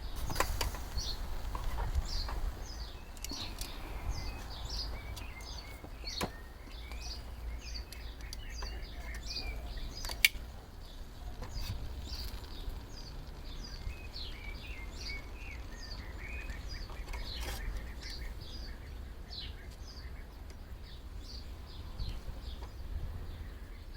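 Small birds chirping in short, frequent calls over a low steady outdoor rumble, with a few sharp clicks.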